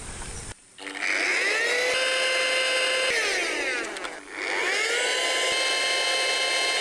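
Small handheld electric air pump spinning up with a rising whine and running steadily as it inflates an inflatable pillow. A little after three seconds in it winds down, then starts up again and runs on.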